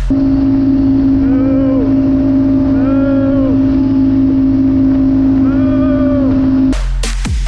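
Engine revved in three short blips, each rising and falling in pitch, over a strong steady hum.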